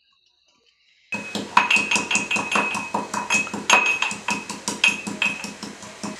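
Metal spoon striking down inside a small steel tumbler: a quick run of sharp, ringing metallic clinks, several a second, starting about a second in.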